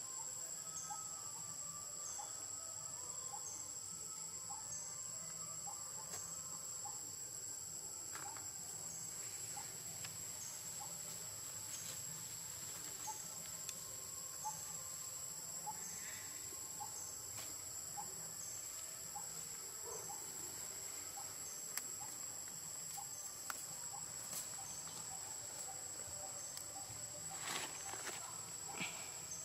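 Insects trilling continuously at a high, steady pitch, with a soft chirp repeating a little more than once a second beneath it and a few brief clicks, the strongest near the end.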